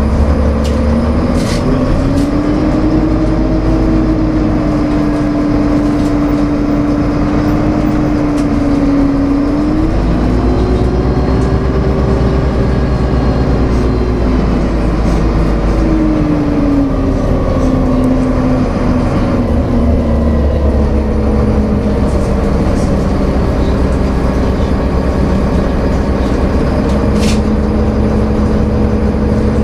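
Karosa Citybus city bus driving, heard from inside the passenger cabin: a steady engine drone over road rumble. The engine note climbs about two seconds in, dips and rises higher again about ten seconds in, then falls away after about sixteen seconds and settles lower.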